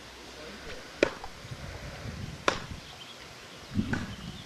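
Wood being chopped: two sharp chops, about a second and a half apart, each a short crack. A softer dull thump follows near the end.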